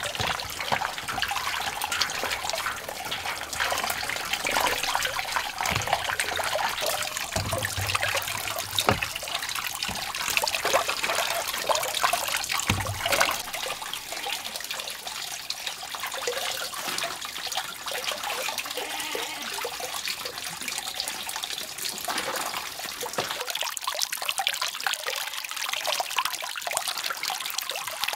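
Water pouring steadily from a bamboo pipe and splashing as things are rinsed under it. Occasional knocks and splashes in the first half or so, as a woven bamboo tray is washed; the flow is smoother and steadier after that.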